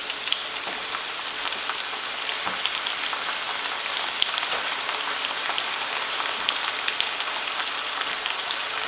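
Sauce boiling down in a hot pan over onions and apples: a steady sizzling, bubbling hiss with scattered small pops.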